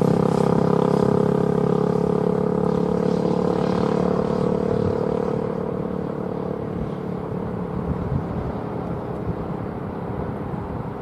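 Diesel freight locomotives running with a steady many-toned drone that fades as they move away, leaving the irregular low rumble of the passing train.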